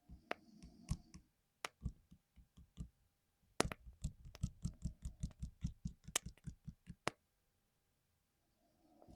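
Keystrokes on a rebuilt 60% mechanical keyboard: a few scattered key presses, then a quick even run of typing, about six strokes a second, for some three and a half seconds.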